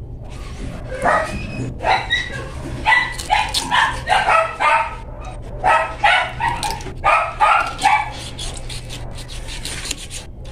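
A dog barking in a string of short, high barks and yips, stopping about eight seconds in.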